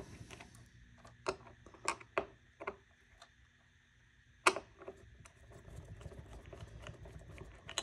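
Scattered light clicks and taps of a screwdriver and small screws being worked out of the turntable's chassis, with one sharper click about halfway through.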